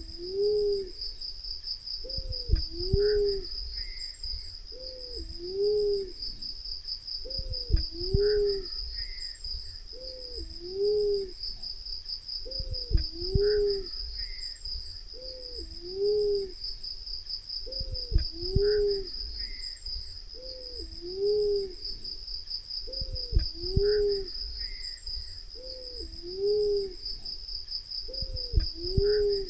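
Black-naped fruit dove calling. Its two-note hooting coo has a first note that rises and falls and a lower second note, and it repeats about every two and a half seconds. A steady high insect buzz runs underneath.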